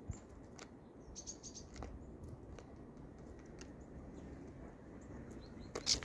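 Great tits and a Eurasian nuthatch feeding on grain in a feeder tray: scattered light taps of beaks and feet on grain and wood, with a few short high chirps. A couple of louder knocks come near the end as the nuthatch lands close by.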